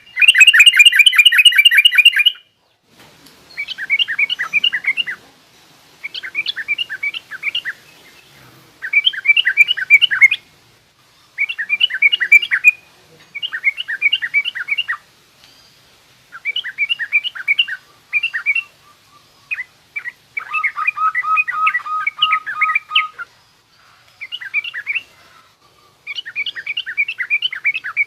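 Yellow-vented bulbul (trucukan) giving a harsh, rough chattering call ('ngriwik kasar') in about eleven short bursts of rapid notes with brief pauses between them. The first burst is the loudest, and a lower trill runs under one burst past the middle.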